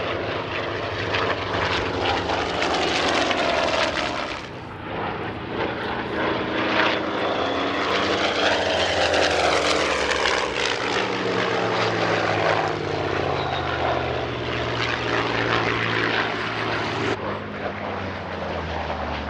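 Douglas A-1 Skyraider's 18-cylinder radial engine and propeller droning through a low pass. The engine note falls in pitch as it goes by, about ten seconds in.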